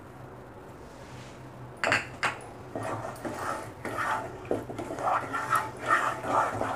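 A wooden spatula stirs and scrapes a thick masala gravy in a pan, with irregular knocks against the pan starting about two seconds in.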